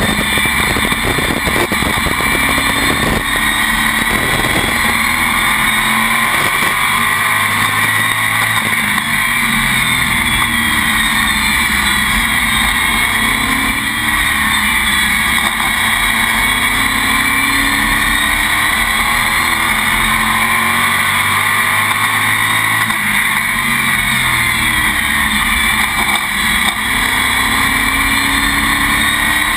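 Sportsman-class stock car's engine heard from inside the cockpit at racing speed, loud and continuous. The engine note sinks and climbs again a couple of times as the driver lifts through the turns and gets back on the throttle down the straights.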